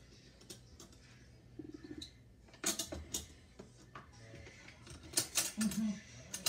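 Dishes and cutlery clinking and knocking together at a sink in a few sharp, scattered clatters, the loudest near the middle and again late on.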